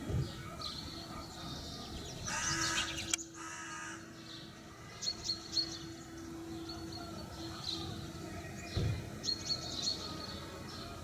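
Small birds chirping in short, repeated high calls over a steady low hum, with a brief louder rough noise about two seconds in.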